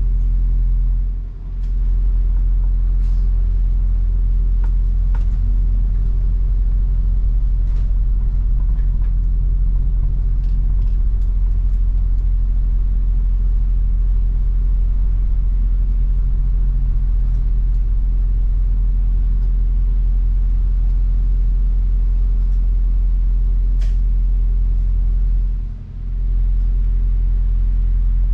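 Steady low rumble of a New Routemaster double-decker bus heard from inside on the upper deck as it drives in traffic, with a hum of the drive train, faint clicks and rattles, and two brief dips in level, one about a second in and one near the end.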